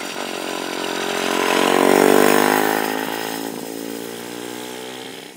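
A go-kart's four-stroke single-cylinder engine running at steady revs as the kart passes by: it grows louder to a peak about two seconds in, then fades as the kart drives away.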